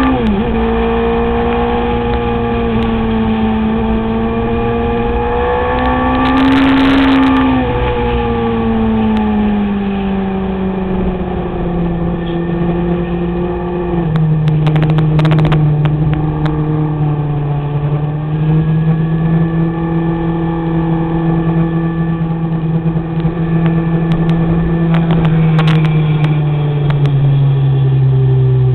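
Kawasaki ZX-6R 636 inline-four engine heard onboard under a steady rush of wind, running at moderate revs. The pitch lifts briefly, then sinks gradually, drops a step about halfway through and falls further near the end as the bike eases off.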